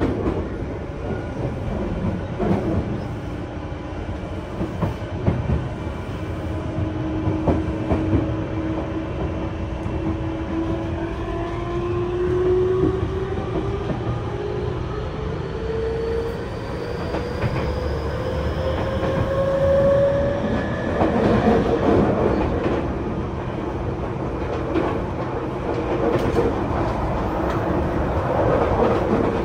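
Tokyu 5050-series train with Hitachi IGBT-VVVF traction control, heard inside the car: the inverter and traction-motor whine rises steadily in pitch as the train accelerates, then stops about twenty seconds in as power is shut off. Throughout, the wheels clatter over rail joints under the steady running noise.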